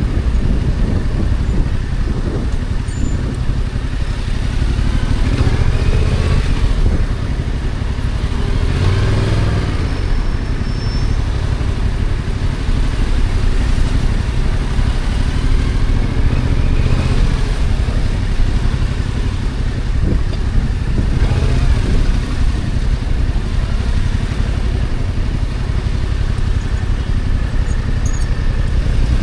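Stock Yamaha XSR700's 689 cc parallel-twin engine running under way. Its pitch rises and falls several times as the bike accelerates and eases off, over a steady low rumble.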